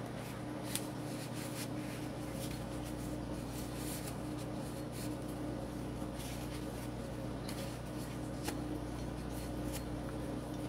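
Microfiber rag rubbing and wiping a Glock 19X pistol slide, a faint rustle with a few light handling clicks as the slide is turned, over a steady low hum.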